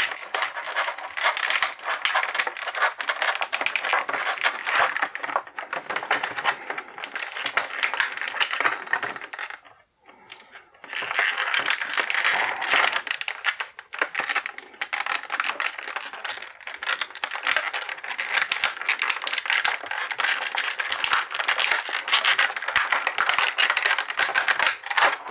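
Stiff clear plastic blister tray crinkling and crackling as it is flexed and twisted to free an action figure, with a brief pause about ten seconds in.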